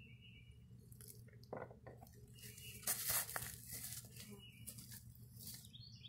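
Rustling and crunching of a person getting up and stepping through dry pine straw and leaves, loudest about three seconds in.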